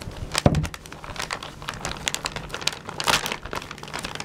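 Wrapping paper crinkling and rustling as it is cut with scissors and handled and pulled open by hand, in many small snips and crackles. A brief low pitched sound comes about half a second in.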